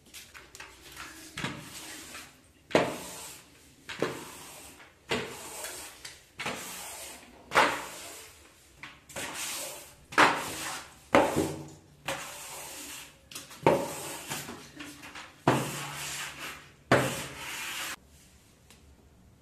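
Long-handled scrubbing brush worked back and forth over a wet marble bathroom floor, in about fourteen rough rubbing strokes roughly a second apart that stop shortly before the end.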